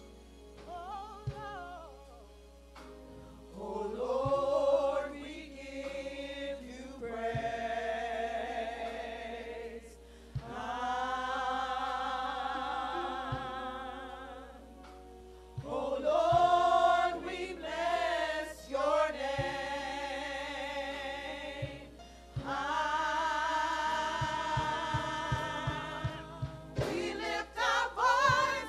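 A group of women singing a gospel song, in slow phrases of long held notes with vibrato; the first few seconds are quieter.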